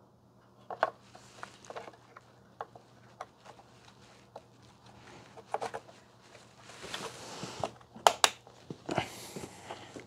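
Scattered light clicks and taps of hands handling computer parts and a motherboard, with short rustles around seven and nine seconds in.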